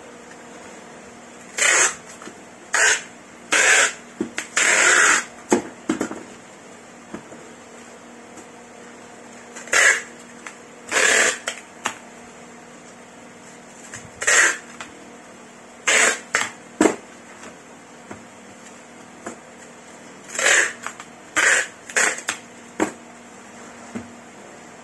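Packing tape being pulled off the roll in short, loud rasps, about a dozen pulls of under a second each, coming in clusters.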